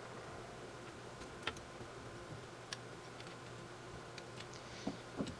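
Faint, scattered light clicks of small metal hardware (bearings, washers and a screw) knocking against a 3D-printed plastic idler as it is assembled by hand.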